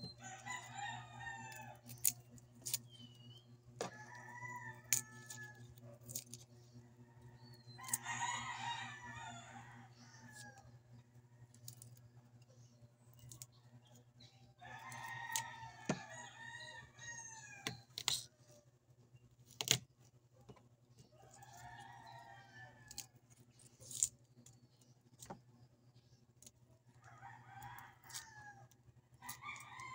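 Rooster crowing over and over, about seven crows spread through the stretch, each a second or two long. Sharp clinks and knocks fall between the crows, over a steady low hum.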